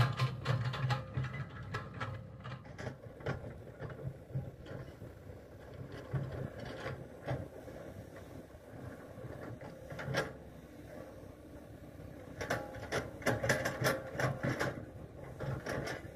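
CAT tracked excavator's diesel engine running steadily while it digs mud out of an irrigation ditch, with repeated clicks and clanks from the working machine, thickest about three-quarters of the way through.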